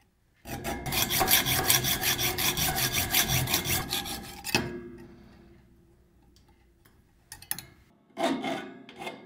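Stanley mini hacksaw cutting down a protruding metal bolt on an antenna mount bracket. Quick, even rasping strokes for about four seconds, then the sawing stops. A few faint clicks follow near the end.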